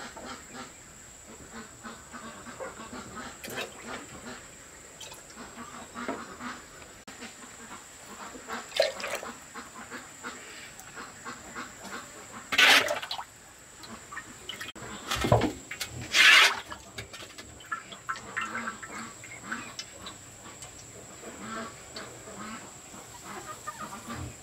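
Farmyard poultry, ducks and chickens, calling on and off in short bursts. Three louder sharp sounds come about halfway through, and a faint steady high whine runs underneath.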